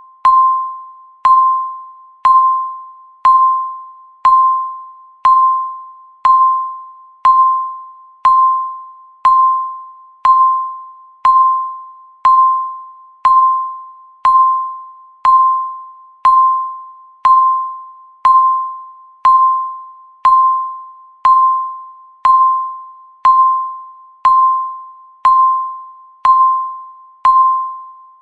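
Countdown timer beep: a single clear electronic tone that starts sharply and fades, repeating once a second.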